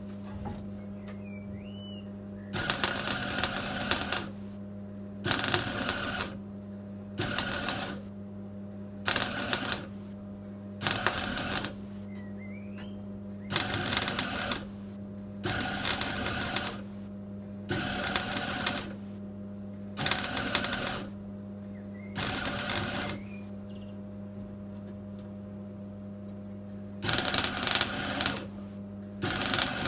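Gas-shielded MIG welding with a Clarke 135TE Turbo welder: about a dozen short bursts of a second or so each, each a harsh crackle as the wire arcs, with a steady low hum between them.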